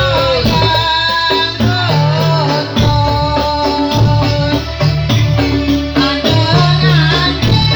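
Dolalak folk dance music: a melody with held, bending notes over a stepping bass line, with jingling rattle-like percussion keeping the beat.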